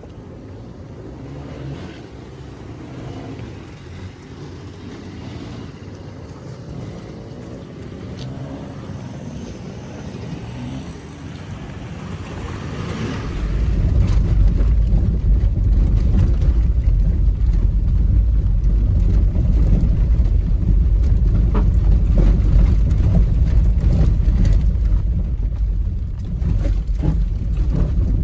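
A 2018 Toyota 4Runner TRD Off-Road driving on a rough off-road trail. About halfway through, a much louder low rumble comes in and stays.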